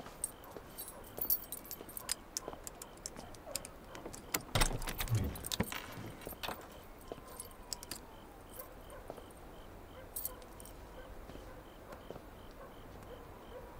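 Light metallic jingling and clinking with scattered running footsteps, and a heavy thud about five seconds in. The clinks thin out in the second half, with a faint high regular ticking underneath.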